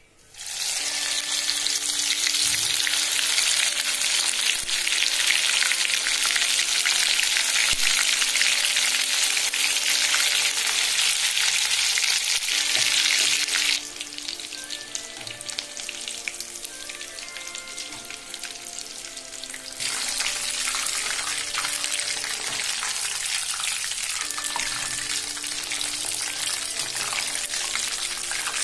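Bread-crumbed prawns deep-frying in hot oil in a wok: a loud, dense crackling sizzle that starts about half a second in, drops suddenly to a softer sizzle about halfway through and comes back up a few seconds later.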